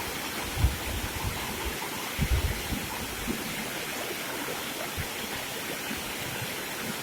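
Fast-running river water rushing and burbling steadily over stones, with a couple of low thumps in the first few seconds.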